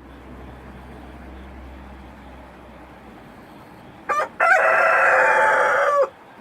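Rooster crowing once, about four seconds in: a short first note, then a long held note that drops at the end. Before it there is a steady background hiss with a low hum.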